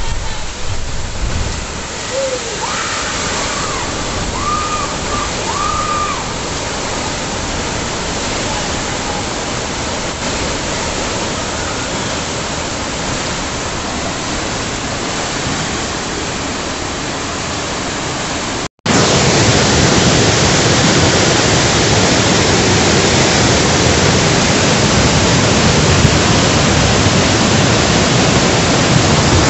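Steady rush of heavy rain and floodwater running through a street. After a sudden cut about two-thirds of the way in, a louder, fuller rush of water pours through a hydroelectric dam's open floodgates.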